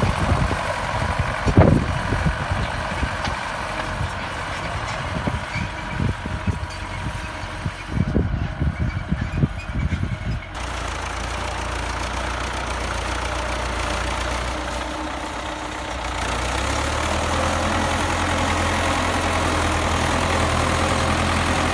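Turbocharged diesel engine of an MTZ-80 tractor (D-240 with a TKR-7 turbo) running. The first half is broken by irregular low thumps. About halfway the sound changes abruptly to a steady engine hum, which grows a little louder near the end.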